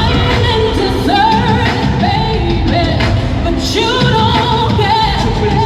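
Live pop concert music with a singing voice over the band, loud and steady through an arena sound system.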